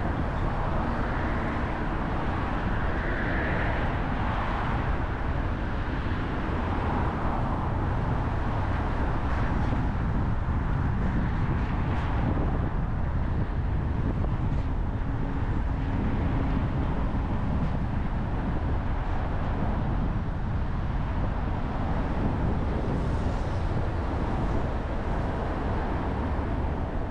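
Steady road noise from a car driving through city streets: low tyre and engine rumble that holds even throughout.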